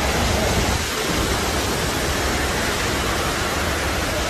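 Fukuroda Falls: a large waterfall giving a steady, loud rush of falling water.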